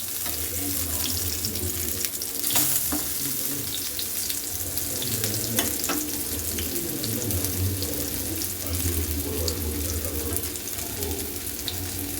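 Marinated seer fish slices shallow-frying in groundnut oil on a dosa tawa, the oil sizzling and crackling steadily, with a few sharp clicks.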